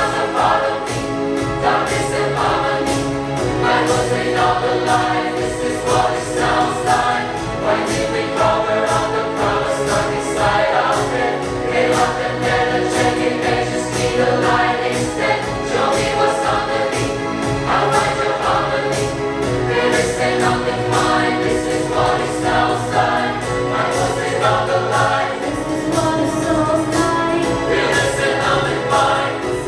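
Choir singing a pop song in full, layered harmony, the voices carrying on without a break.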